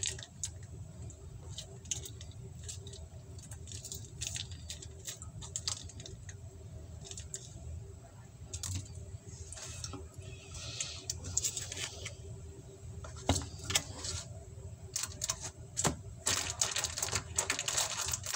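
Irregular light clicks and taps of food containers and utensils being handled on a table, over a low steady room hum; the handling noise grows busier near the end.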